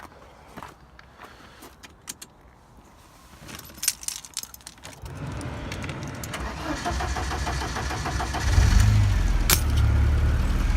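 Keys clinking at the ignition, then a Ford Escort Mk5's engine is started about halfway through and runs at idle, getting louder from about eight and a half seconds. There is a sharp click near the end.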